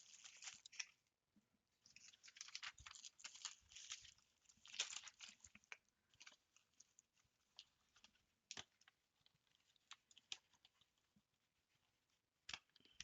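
Faint rustling and crinkling of plastic-bagged embroidery floss and packaging being handled and packed into a cardboard box. Three short bursts of crinkling come in the first half, then only scattered light taps and clicks.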